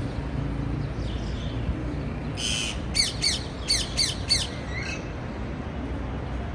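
Parakeet calling: a harsh squawk a little over two seconds in, then a quick run of six sharp chirps, each falling in pitch, over a steady low rumble.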